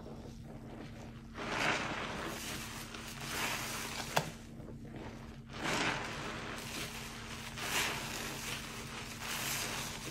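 A foam-soaked sponge in a basin of Roma detergent suds squeezed and kneaded by rubber-gloved hands: wet squelching and sloshing swells about every two seconds, with one sharp click about four seconds in.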